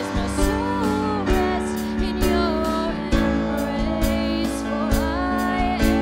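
A woman sings the lead of a worship song live into a microphone, with a band behind her: a Roland electronic drum kit keeps a steady beat under sustained chords.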